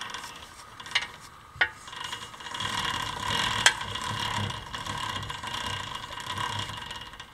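A steel nut being screwed onto the threaded end of a shaft held in a pillow block bearing, with metal-on-metal turning and scraping. There are sharp clicks about a second in, again soon after, and a louder one near the middle. A steady scraping runs from a couple of seconds in until near the end.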